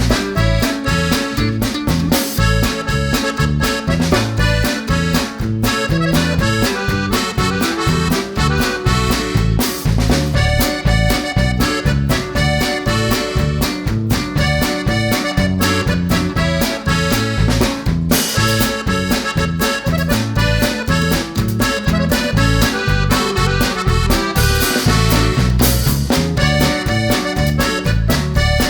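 Upbeat background music with accordion over a steady bass and drum beat.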